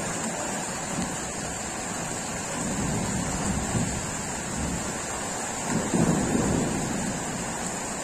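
Thunder rumbling over steady rain, with a low rumble swelling loudest about six seconds in.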